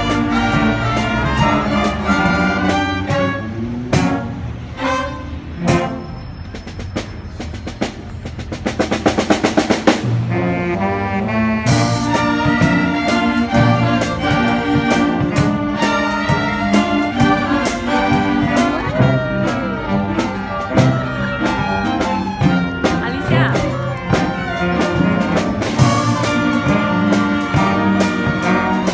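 A youth string orchestra of violins, violas and cellos playing. About eight seconds in, a quieter passage of fast repeated notes swells in loudness, and the full ensemble comes back in loudly at about twelve seconds.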